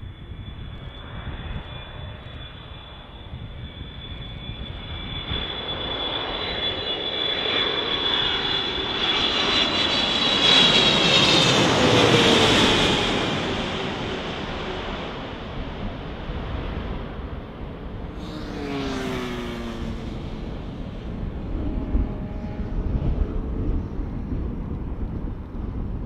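Boeing 777 freighter's twin GE90 turbofan engines on low final approach: a steady high fan whine that grows louder as the jet passes overhead, then drops in pitch as it goes by, with a second shorter pass of falling pitch later and one sharp knock near the end.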